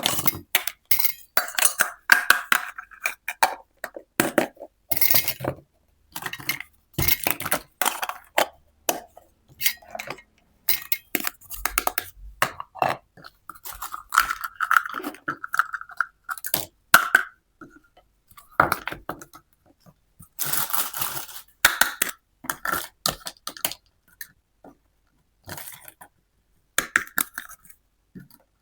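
Pieces of a miniature toy kitchen set clinking and tapping against each other and the table as they are handled, in irregular clusters of small clicks, some with a brief ring.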